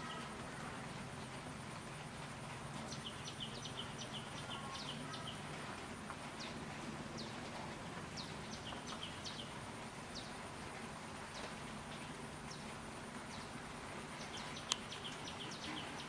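Forest ambience: a steady hiss with a faint, high, unbroken drone like insects, and several bursts of quick, high chirps that each slide down in pitch. A single sharp click comes near the end.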